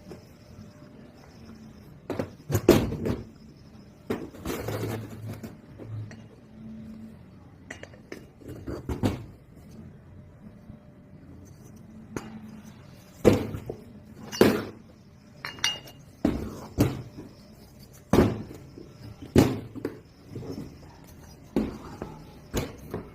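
Metal tools and engine parts being handled on a workbench: irregular sharp clinks and knocks, about fifteen in all, the loudest a few seconds in and again in the second half.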